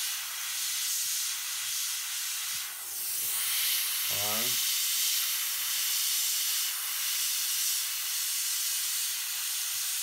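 Iwata Eclipse BCS airbrush spraying paint: a steady hiss of compressed air with small rises and dips as the trigger is worked. A short rising chirp about four seconds in.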